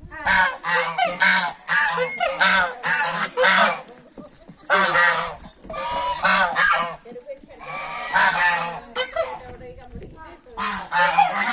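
Loud, repeated honking bird calls: a quick run of short calls, then several longer ones.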